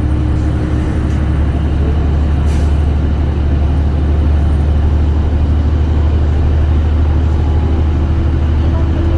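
City bus running, heard from inside the cabin: a steady low engine drone with a held hum above it, and a brief hiss about two and a half seconds in.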